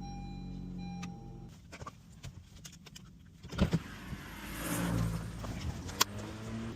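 A Honda car running, its steady hum cutting off about a second and a half in. It is followed by a few clicks, a sharp thump midway, and the car's sound building again. This is a test of a newly programmed key fob with remote start.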